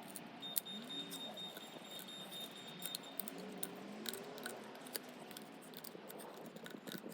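Knife cutting and scoring a dry, hard Japanese knotweed stem: a run of small irregular clicks and snicks as pieces of the stalk are taken away. A thin steady high tone sounds for a couple of seconds near the start.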